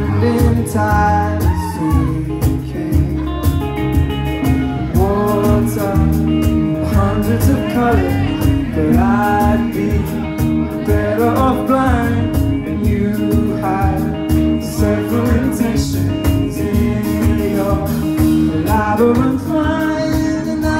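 Live band playing a song: electric guitar, bass guitar and drums, with a male voice singing over them.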